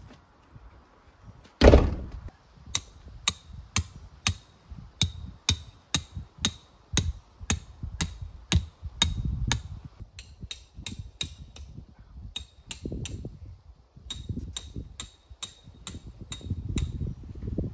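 A heavy thump about two seconds in, then a hammer driving metal tent stakes into the ground: sharp ringing strikes of metal on metal, about two a second, with a short break midway.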